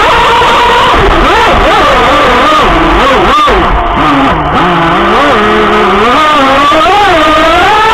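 Whine of the Minicat 820 EP RC catamaran's twin electric motors at speed, heard close up from the stern over rushing water spray, its pitch sagging and rising with throttle and load. The whine dips about halfway through and climbs back near the end, with one sharp knock about three and a half seconds in.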